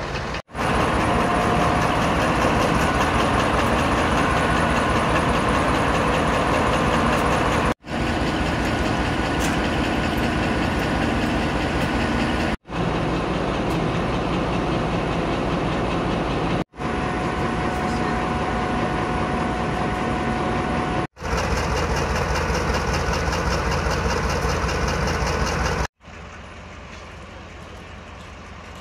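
Class 35 Hymek diesel-hydraulic locomotive's engine running close by, heard in several short clips that cut off abruptly one after another, with a steady whine over the engine in some of them. Near the end it drops to a much quieter, distant locomotive rumble.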